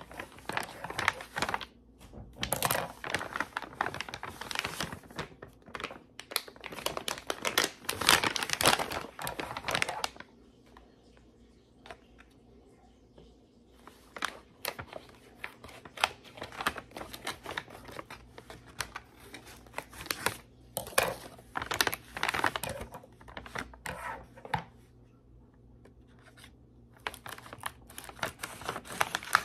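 Plastic packaging crinkling and tearing as double-wrapped food packets are unwrapped by hand. It comes in bursts, with two quiet pauses of a few seconds, about a third of the way in and near the end.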